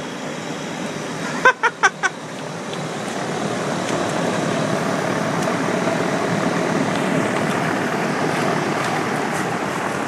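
Outdoor unit of a 1999 Rheem 4-ton heat pump running: a steady rushing noise that grows louder about three seconds in and then holds.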